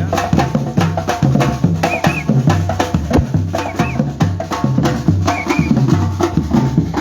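Batucada percussion ensemble playing a steady rhythm: deep bass drum strokes repeating under a dense run of sharper drum hits.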